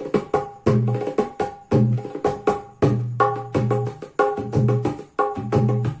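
Dholak being played in a steady rhythm: deep, booming bass strokes on the larger head, with quick, sharp, ringing strokes on the treble head between them.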